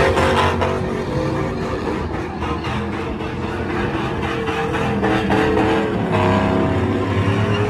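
Pickup truck engine held at high revs during a smoky burnout, its pitch wavering up and down as the rear tires spin.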